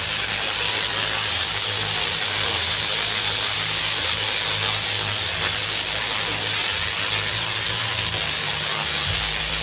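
Large Tesla coils discharging: electric arcs give a loud, continuous buzzing crackle. Under it runs a low hum that changes pitch in steps, most clearly about nine seconds in.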